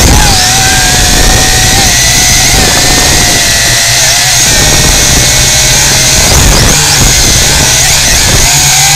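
Multirotor drone's electric motors and propellers whining from on board, the pitch wavering up and down with the throttle, over a low rumble of wind on the microphone.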